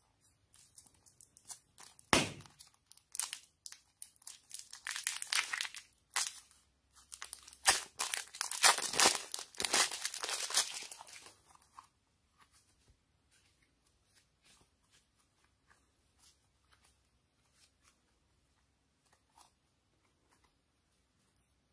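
Thin plastic piping bag crinkling and tearing as it is squeezed and peeled away from a lump of soft modelling clay, loud in spells through the first half and fading about halfway through to faint scattered ticks as the clay is handled.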